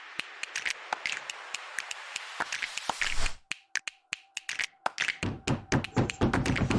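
Background electronic music in a breakdown. A hiss with ticking percussion over it thins out to sparse clicks and a single held tone, and the bass beat comes back about five seconds in.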